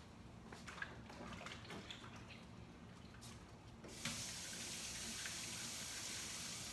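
Sink tap running while hands are washed under it. The water comes on about four seconds in as a steady hiss and stops at the very end, after a few faint knocks before it.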